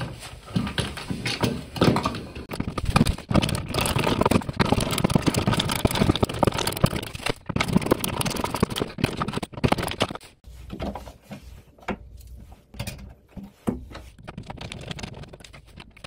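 A screwdriver drives in the mounting screws of a GFCI outlet as the wired outlet is pushed into a plastic electrical box: rapid scraping and clicking of metal and plastic. After about ten seconds come sparser, separate clicks as a wall plate is fitted and its screw turned.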